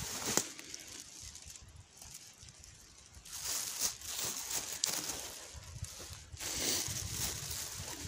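Leaves and grass of dense blackberry undergrowth rustling as someone pushes through and handles the plants, louder in two stretches starting about three and six seconds in, over a low rumble on the microphone.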